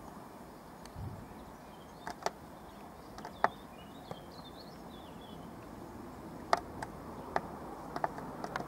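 Stiff, rusted tripod head clicking and clucking irregularly as the camera pans, about a dozen sharp clicks. Faint bird chirps come partway through over a steady background hiss.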